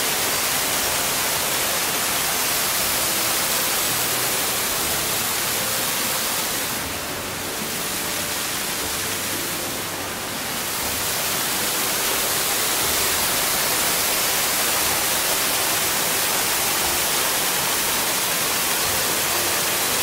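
An artificial waterfall sheets off a stone wall and splashes into a shallow pool: a steady, even rushing of falling water. It turns a little softer for a few seconds around the middle, then returns to full strength.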